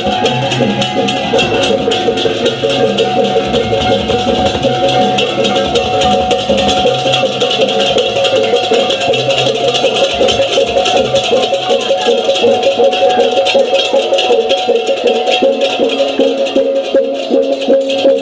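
Balinese gamelan ensemble playing fast, dense strokes over steady ringing tones.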